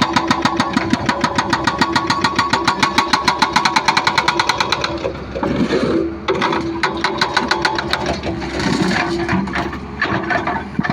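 Hydraulic excavator demolishing concrete: a fast, even hammering of about nine blows a second, typical of a hydraulic breaker on concrete, stops about five seconds in. The diesel engine runs on, with a few scattered knocks.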